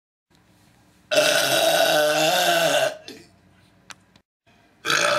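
A man burping: one long, drawn-out belch of nearly two seconds starting about a second in, its pitch wavering, then a second burp beginning near the end.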